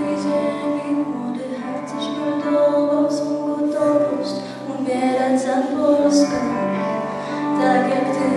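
A girl singing a song into a microphone, accompanied by two acoustic guitars and a ukulele strumming chords.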